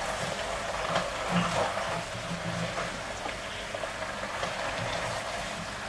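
Stir-fried instant noodles and vegetables sizzling in a frying pan as they are turned with a silicone spatula, with a few light scrapes and taps of the utensils against the pan.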